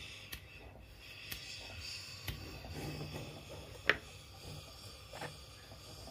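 A few short, sharp clicks and knocks over a low, steady background, the loudest about four seconds in, as a hand-held gas torch is readied over a brick.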